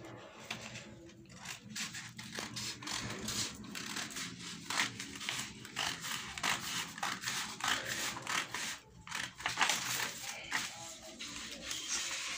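Scissors cutting through a sheet of paper, a run of uneven snips with paper rustling.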